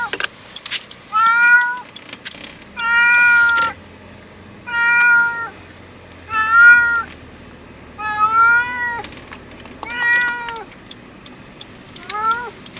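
Domestic cat meowing loudly and repeatedly from inside a pet carrier in a car: about eight long, drawn-out meows, one every second and a half to two seconds, with a shorter one near the end. It is the distressed protest of a cat that dislikes car rides.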